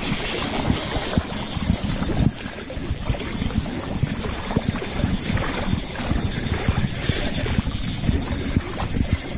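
Wind buffeting the microphone in irregular low rumbles and thumps, over a steady hiss of flowing river water.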